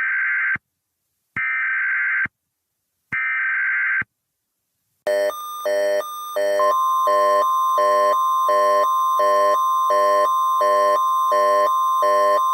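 Emergency Alert System header: three screechy digital data bursts about a second long, a second apart. Then the alert's attention signal: a pulsing electronic alarm tone, about one and a half pulses a second, with a steady high tone joining it at about six and a half seconds.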